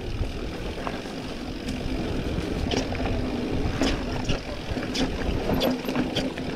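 Mountain bike riding down a rough trail: a steady rumble of wind and tyres, with scattered sharp knocks and rattles from the bike over bumps.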